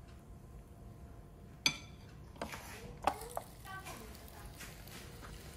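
A metal spoon clinks sharply against the plate of an electric mini cupcake maker as batter is spooned in. About three seconds in, the cupcake maker's plastic lid is shut with a couple of clacks.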